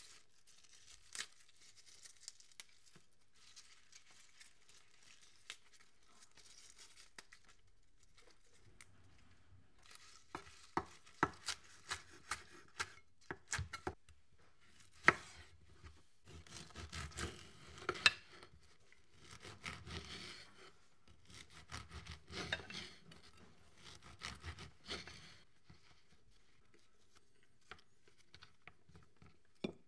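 Kitchen knife chopping fresh herbs on a wooden cutting board. Soft rustling of leaves being handled comes first, then several runs of quick knife knocks on the board through the middle, and a few scattered taps near the end.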